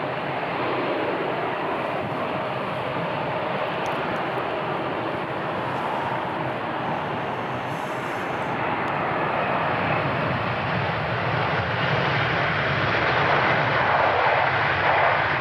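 Twin-engine jet airliner landing and rolling out along the runway: a steady, dense engine rush that grows louder over the last few seconds.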